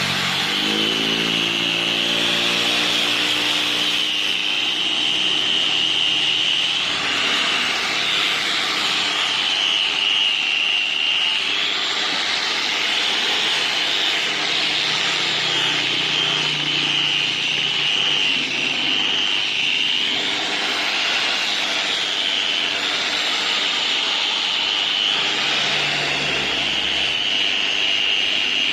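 Angle grinder fitted with a wire brush wheel running steadily at full speed with a high whine, its wire bristles scrubbing rust off metal in a rough hiss that swells and eases as it is pressed on and lifted.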